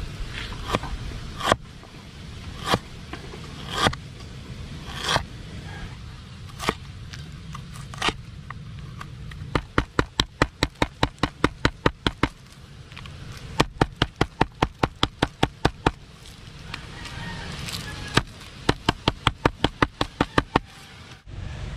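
A cleaver chopping ginger on a wooden board, one sharp knock about every second, then a smooth stone pounding black peppercorns in a plastic bag on the board in three quick runs of about five strikes a second.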